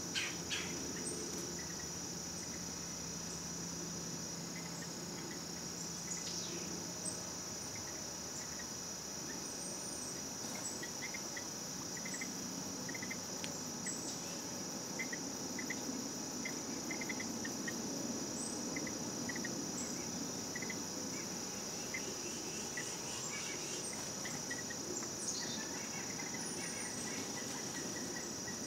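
Steady high-pitched insect chorus in summer woodland, with short faint chirps scattered through the middle.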